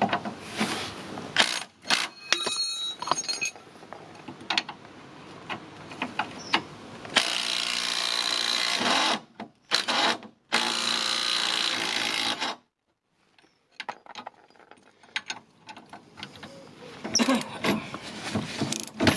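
Makita cordless impact wrench running in two bursts of about two seconds each, spinning off a rusted subframe nut that has probably never been undone before. Clinks and clicks of tools on metal come before and after.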